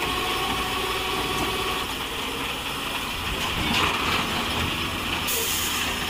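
Heavy truck engine running steadily, heard over a wide outdoor hiss, during the winching of an overturned dump truck back onto its wheels by a wrecker.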